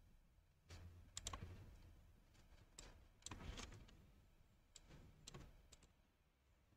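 Faint, irregular clicking of a computer mouse and keyboard, a dozen or so short clicks in small clusters, as the software is operated.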